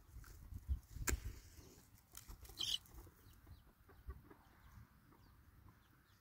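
Dry sticks being handled and laid over a fire pit, with a sharp snap about a second in. A chicken clucks in the background.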